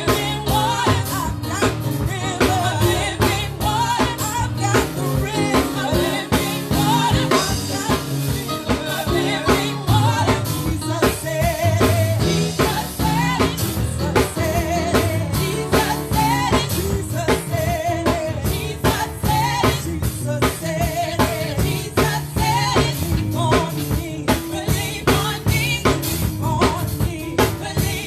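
Live gospel praise music: the praise team singing over a full band with a drum kit, bass and keyboard.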